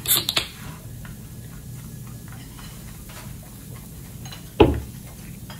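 A man gulping a drink from a can, with faint, fairly regular swallowing clicks. A short burst of noise comes at the start, and a single loud thump about four and a half seconds in.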